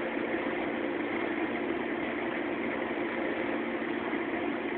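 Steady mechanical hum, unchanging throughout, like a motor or appliance running.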